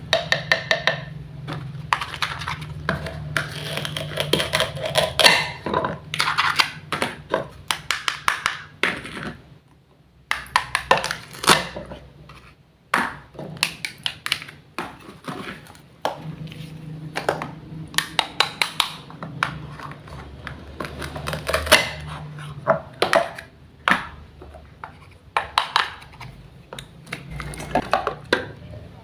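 Quick irregular clicks, taps and knocks of small kitchen items being handled, in clusters with brief pauses, over a faint steady low hum.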